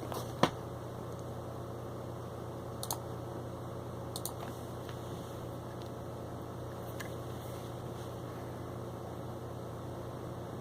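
Steady low electrical hum with a faint background hiss, broken by a few scattered short clicks, the sharpest about half a second in.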